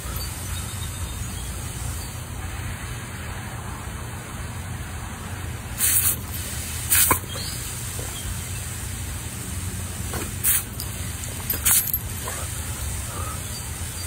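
Water spraying steadily from a garden hose nozzle, a continuous hiss over a low rumble, broken four times by short, sharp bursts of noise that are the loudest sounds.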